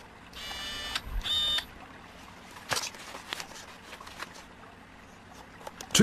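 Two short, high, buzzy beeps about a second in, the first lasting about half a second and the second shorter, followed by a few faint clicks.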